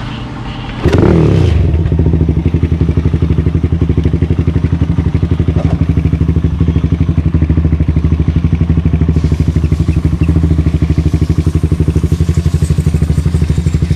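Suzuki Raider 150 carb single-cylinder four-stroke engine, bored and stroked to 220cc, running through its DBS exhaust pipe. It revs up briefly about a second in, then holds a steady, rapidly pulsing beat at low revs.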